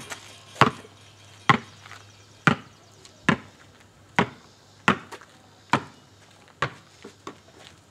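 Basketball dribbled on an asphalt driveway: a steady bounce a little more than once a second, about ten bounces, growing fainter near the end.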